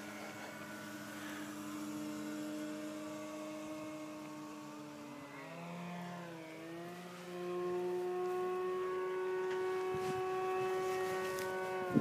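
Electric radio-control model airplane in flight: a steady motor-and-propeller whine. About halfway through the pitch dips and wavers, then holds higher and louder, and it falls sharply near the end as the plane passes low.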